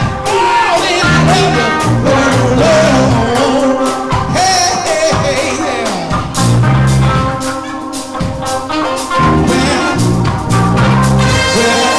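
Live soul band playing a funk groove: a male lead singer sings over electric guitar, keyboards, drums and a repeating low bass line. The voice is mostly in the first half; the band keeps the groove going after it.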